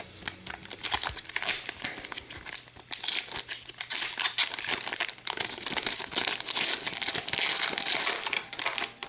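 A hockey card pack's wrapper being torn open and crinkled by hand: a dense, continuous run of crackling, busiest through the second half.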